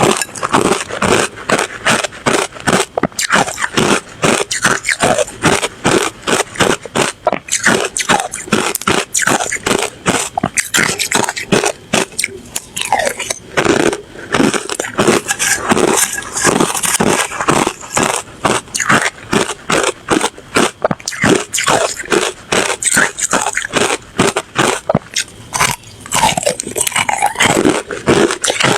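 A person biting and chewing ice: a steady run of hard crunches and cracks, several a second.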